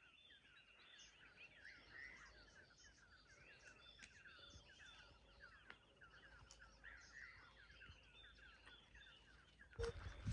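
Faint, continuous chatter of many small birds: quick chirps and short downward-sweeping notes overlapping one another. A louder noise cuts in just before the end.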